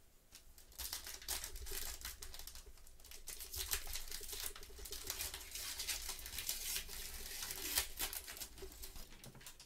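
Foil wrapper of a Panini Contenders basketball card pack crinkling and tearing as it is opened by hand. It is a dense run of crackles that starts about a second in.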